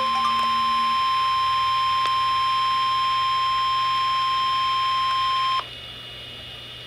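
NOAA Weather Radio 1050 Hz warning alarm tone, the signal that an alert such as a special marine warning is about to be read. It is one steady, high-pitched tone that cuts off sharply about five and a half seconds in, leaving quieter radio hiss.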